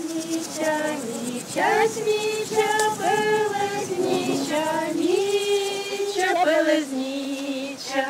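A small group of women singing a folk song unaccompanied, in long drawn-out notes.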